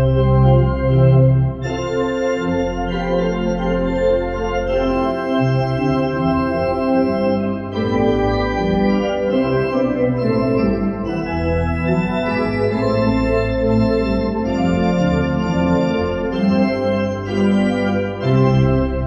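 Church organ playing the postlude: full sustained chords over deep bass notes, the chords changing every second or two.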